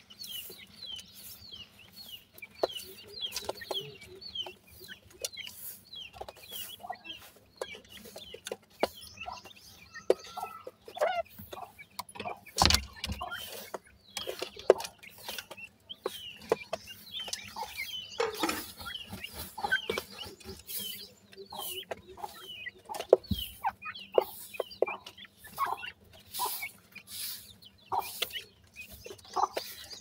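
Young francolin chicks giving many short, high cheeping calls while pecking and scratching in loose dry soil, with frequent dry clicks and scratches and a few louder knocks.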